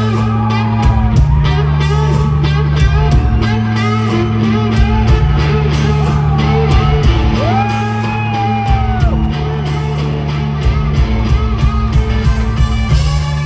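Live rock band playing an instrumental passage: an electric guitar lead with bending, sliding notes over held bass notes and a steady drum beat.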